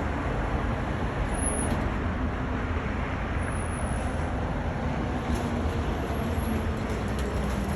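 Steady road traffic noise from passing vehicles, with a faint engine hum that drops slightly in pitch near the end.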